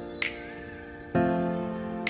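Background music: sustained chords that change about every second and a half, with a light percussion tap shortly after the start.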